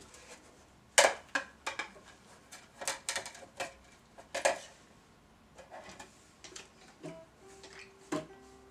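Scattered light clicks and knocks of a spinning plate, its stick and a ukulele being handled, the sharpest about a second in. A brief steady note sounds near the end.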